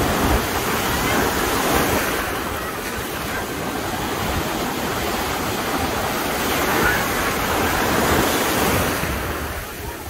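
Ocean surf breaking against wooden pier pilings and washing up the shallows in a steady rush of water. One wave breaks at the start and another about seven seconds in, and the rush eases near the end.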